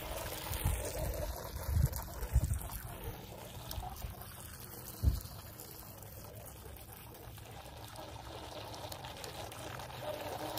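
Shallow water lapping and trickling at the shoreline, stirred by the wake of a small RC jet ski. There are a few low thumps in the first five seconds.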